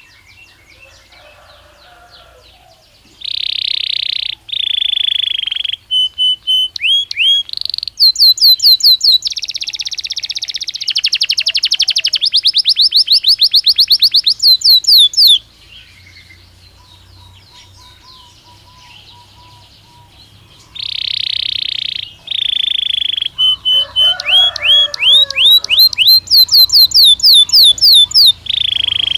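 Belgian canary singing two long bouts of song, each made of held notes, rapid trills of repeated notes and quick rising sweeps, with softer chirping in the pause between the bouts.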